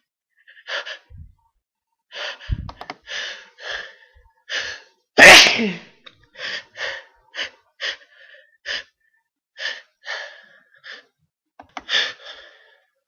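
A run of sneezing: short, sharp sneezes about one or two a second, with one much louder, longer sneeze about five seconds in.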